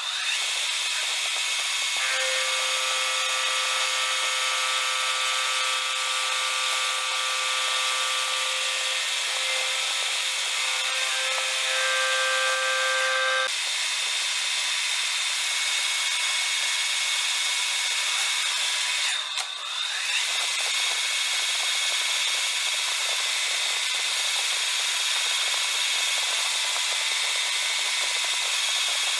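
Metal lathe turning a part with a carbide-insert tool: a steady hiss of cutting as chips and coolant spray off the spinning chuck. A steady pitched whine sounds over it from about two seconds in until about thirteen seconds, and the sound dips briefly around nineteen seconds.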